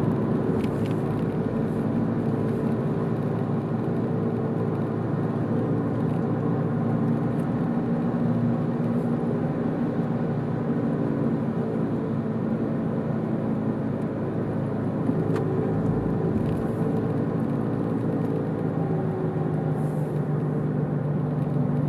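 Car driving at a steady speed: a continuous hum of engine and tyre noise on the road, its low tones drifting slightly in pitch as the speed changes through the bends.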